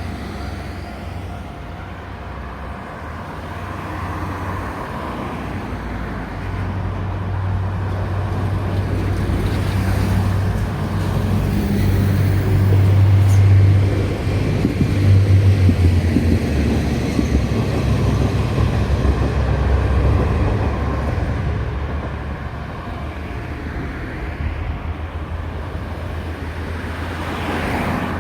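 Road traffic passing on a main road: a steady stream of vehicles, with a heavy low engine hum that builds to its loudest about halfway through and then fades.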